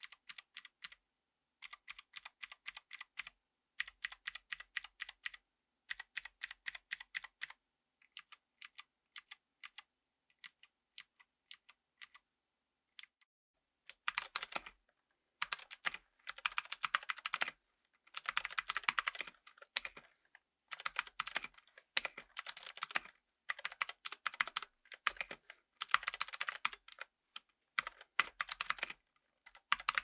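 Mechanical keyboard with Gateron Green clicky (click-jacket) switches in an aluminium case with a brass plate: sharp clicks in short runs, thinning to scattered single key presses, then dense fast typing from about halfway through.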